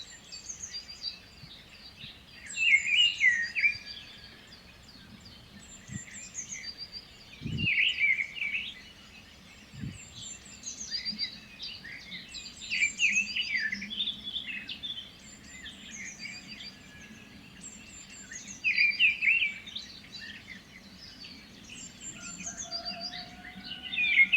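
Parrots calling: loud bursts of chirping calls every few seconds, with thinner, higher chirps in between.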